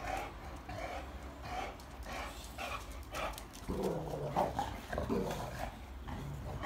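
Boxer dogs play-fighting: a quick series of short breathy sounds and scuffles, with a longer stretch of low dog vocalizing from about four seconds in.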